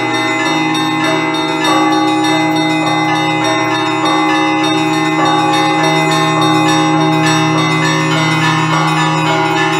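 Russian Orthodox church bells ringing a festive improvised peal (zvon): quick repeated strikes of small bells layered over the sustained ringing of deeper bells, all sounding together in a continuous, dense texture.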